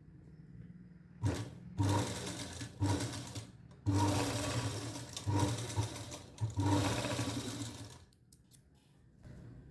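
Sewing machine stitching a folded fabric tie strip in several short runs, starting about a second in and stopping and restarting a few times before going quiet near the end.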